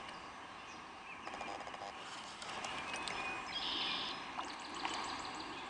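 Songbirds chirping and singing over a faint steady outdoor hiss, with a short trilling phrase about three and a half seconds in and a few light clicks.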